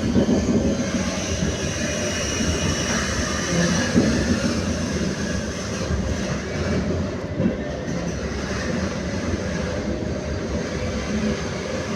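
Kolkata Metro train running along the track on a test run: a steady rumble of wheels on rail with a faint high whine over it.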